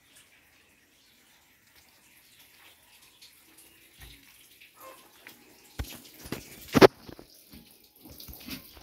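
Water splashing at a concrete laundry sink, with a few sharp knocks. The first few seconds are nearly quiet; the sounds begin a little before six seconds in, the loudest splash coming about seven seconds in.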